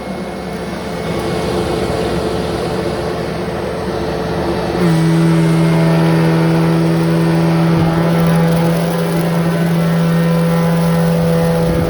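A 23-year-old Smartvac upright vacuum cleaner running, its motor hum building over the first few seconds. About five seconds in it turns louder and drops slightly in pitch, then holds steady.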